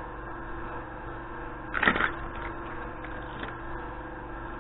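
Steady electrical hum, with a short clatter of metal tools being handled in a toolbox about two seconds in and a faint click a little later.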